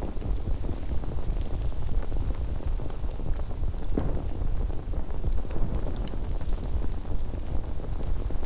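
Fire burning: a steady low rushing noise with frequent sharp crackles and pops scattered through it.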